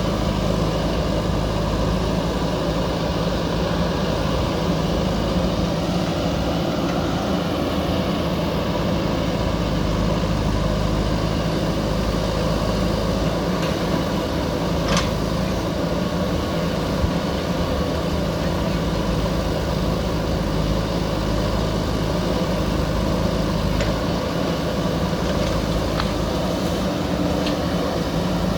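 JCB backhoe loader's diesel engine running steadily, with a few short clicks or knocks about halfway through and again near the end.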